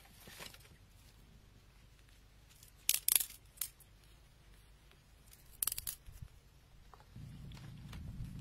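Short bursts of dry crackling, about three seconds in and again near six seconds, with a single click between them. A low steady hum comes in near the end.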